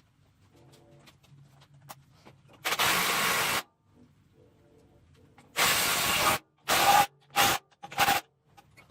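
Bursts of hissing spray, five in all: two of about a second each, then three short blasts in quick succession near the end.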